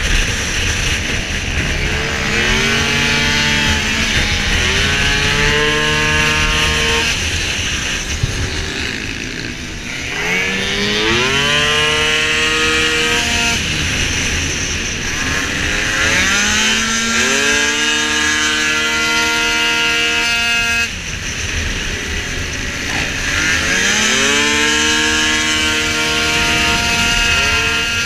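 Piaggio Skipper racing scooter's two-stroke engine at racing speed. Its pitch climbs and then holds steady, drops away and climbs again about four times as the throttle is closed and reopened through the corners, over a steady rush of wind.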